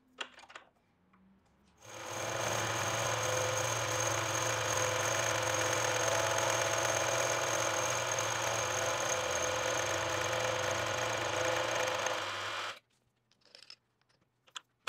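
Benchtop milling machine running steadily with a router bit in its drill chuck slowly cutting dovetails into brass, an even whine with a high, thin tone over the motor hum. It starts about two seconds in and stops suddenly about thirteen seconds in, with a few faint clicks before and after.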